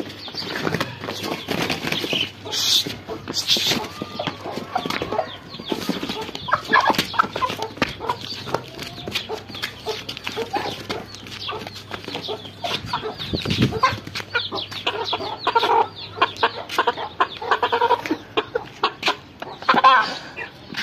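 Chickens in a fight, a hen attacking a young chicken: clucking and squawking calls, bursts of wing flapping and scuffling, with many short knocks and handling noise as they are pulled apart.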